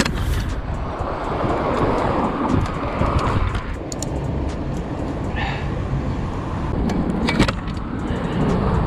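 Wind rushing over a GoPro's microphone as a Gios FRX mountain bike rolls over asphalt, with light rattling and clicking from the bike and a sharp clack about seven seconds in.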